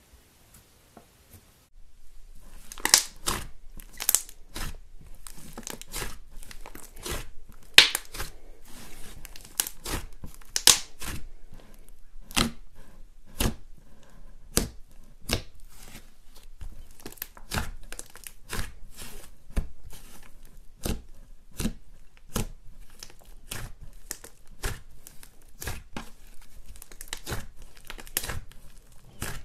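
Thick blue slime pressed and squeezed by hand, giving off an irregular run of sharp crackling pops and clicks as air pockets in it burst, several a second. Before that, about two seconds of faint, soft handling.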